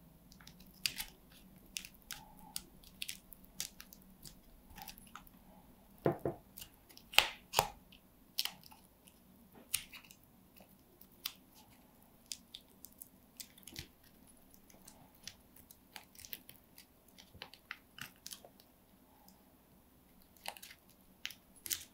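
Masking tape and foil crinkling as small strips of tape are wrapped and pressed around a rolled-foil body with floral wire legs: irregular sharp crackles and ticks, a few louder ones about six and seven seconds in.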